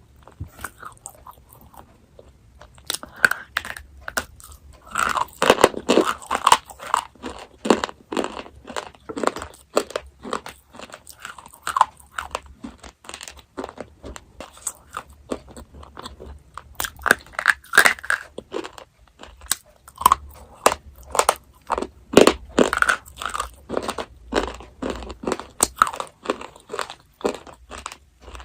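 Chocolate being bitten and chewed close to the microphone. It starts quiet, then about three seconds in comes a steady run of short, crisp crunches and chews.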